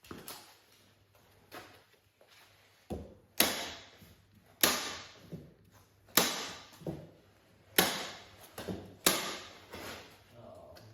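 Wood being struck with sharp, heavy knocks: about five loud blows roughly a second and a half apart, each ringing briefly, with a few lighter taps before them.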